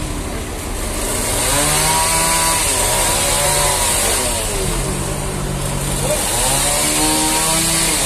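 Vertical band sawmill cutting through a trembesi log. A steady hiss sits over the machine's drone, which rises and falls in pitch over and over, about every second and a half.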